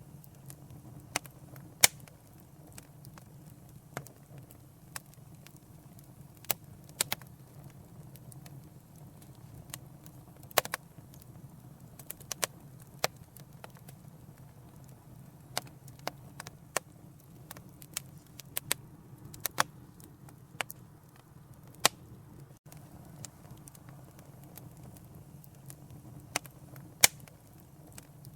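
Wood fire crackling, with irregular sharp pops over a steady low roar of the flames; a few pops stand out louder than the rest.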